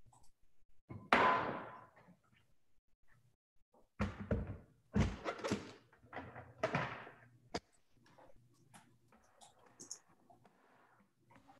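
Hard plastic thunks and knocks as the NutraMilk's plastic container is handled and seated on its motor base: one loud knock with a short ring about a second in, a cluster of clattering knocks around the middle, and a sharp click as it locks into place.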